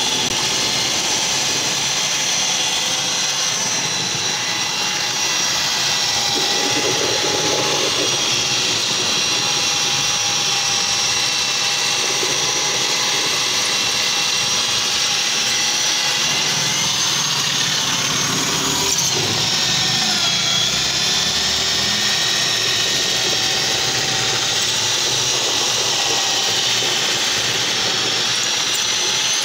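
Handheld electric drill with a paddle mixer running steadily, churning distemper paint in a bucket while thickener is poured in. Its motor whine dips and wavers briefly about two-thirds of the way through.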